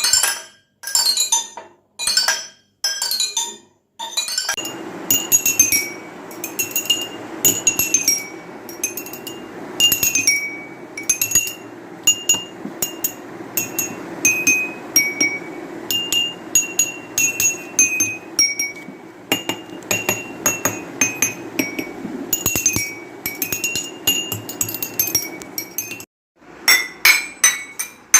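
Glass vessels holding different amounts of water, struck one after another in a quick run like a simple tune, each ringing a clear note at its own pitch. A steady low hum runs underneath for most of the stretch and stops shortly before the end.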